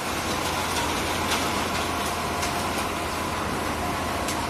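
Tractor-operated transit mixer running: the tractor's engine runs steadily under a steady whine, with a few light clicks.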